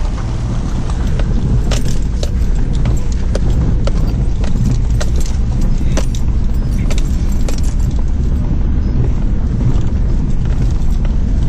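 Engine of an older four-wheel drive running steadily, heard from inside the cab on a rough dirt track, with frequent short clinks and rattles as the vehicle bounces along.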